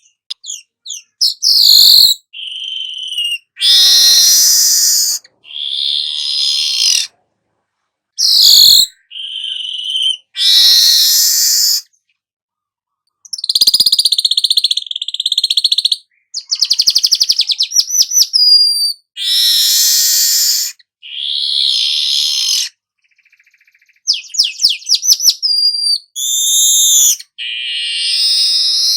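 Weaver bird (manyar kepala emas) singing a string of harsh, wheezy phrases mixed with quick downward whistles and fast rattling trills. Each phrase lasts about one to two seconds, and complete silence falls between them.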